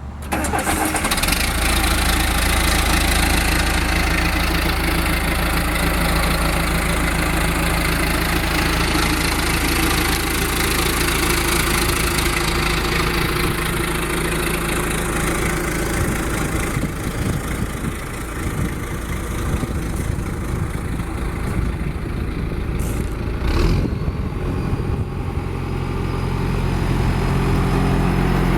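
John Deere 510C backhoe's diesel engine running steadily, with a single sharp knock about twenty-three seconds in.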